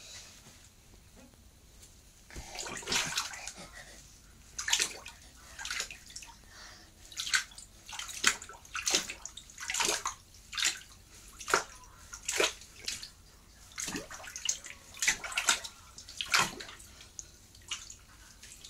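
Bathwater splashing and sloshing as a toddler stomps on soaked laundry in a bathtub: separate splashes about once a second, starting about two seconds in.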